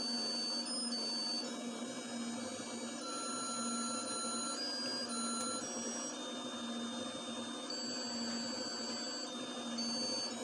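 Crystal ball party light running: a steady motor hum that swells about once a second, with thin high electronic whines that jump to a new pitch every half second or so.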